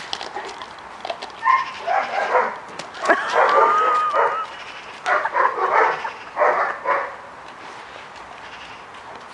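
A dog barking in four bouts over several seconds, the longest bout with a drawn-out, rising yowl.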